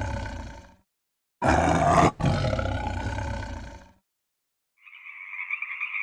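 Tiger roaring: the tail of one roar fades away, then a second roar starts loud about a second and a half in and dies away over about two and a half seconds. After a short silence, a steady frog croaking begins near the end.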